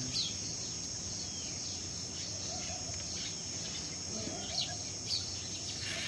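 Insects trilling steadily at a high pitch, with a few short bird chirps over them.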